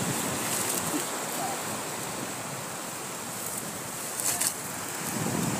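Wind blowing on the microphone over the steady wash of surf on the beach, with a brief rustle about four seconds in.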